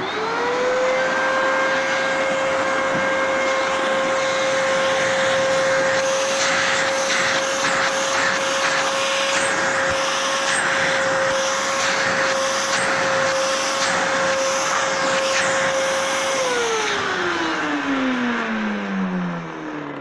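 1800-watt canister vacuum cleaner switched on: its motor spins up at once to a steady high whine and runs normally after a motor and dust-bin filter repair. About sixteen seconds in it is switched off and winds down with a falling pitch.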